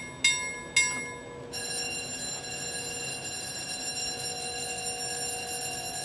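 Swing-bridge warning bell, struck about twice a second for the first second. About a second and a half in it gives way to a steady, unbroken ringing tone, with a faint constant hum underneath.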